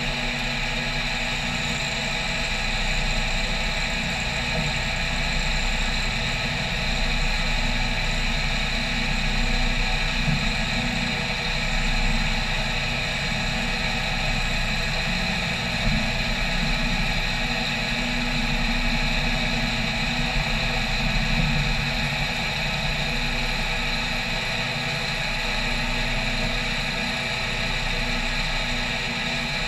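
CNC milling machine's spindle and end mill cutting a wet aluminium plate on a 2D adaptive clearing pass: a steady machining whine made of several held tones, with a low rumble underneath that rises and falls slightly.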